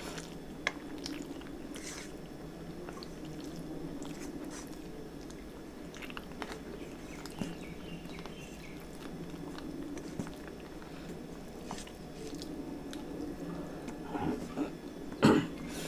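A person eating rice and curry with their fingers from a steel plate: chewing and wet mouth sounds with a few small clicks. A louder smack comes near the end as a fresh mouthful is taken.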